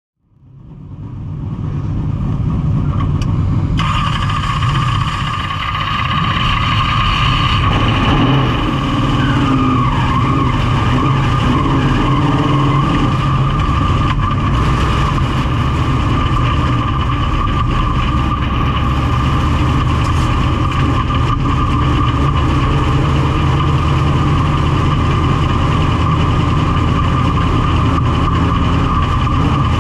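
Big-block V8 of a dirt modified race car heard from inside the cockpit, running at low, steady speed on a slow warm-up lap. It fades in at the start, and a steady high whine joins the engine note about four seconds in.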